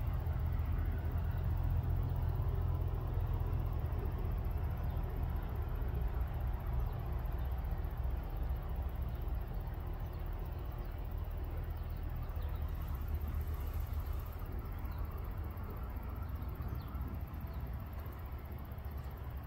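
Outdoor background noise: a steady low rumble with a faint hiss above it, easing slightly toward the end.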